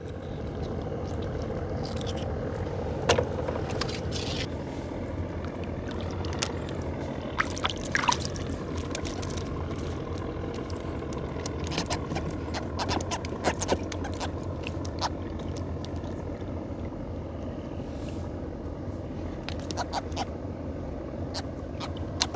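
A small engine running steadily, with scattered clicks and knocks of gear being handled over it.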